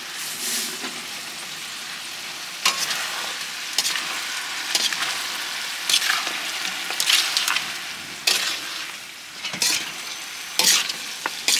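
Pieces of bamboo rat meat sizzling as they are stir-seared in a hot pot until firm. The steady hiss is broken about once a second by the louder scrape and sizzle of the stirring.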